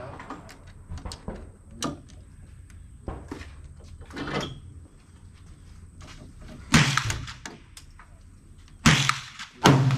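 Gunfire at a shooting range: a few fainter shots in the first half, then three loud, sharp reports in the last few seconds.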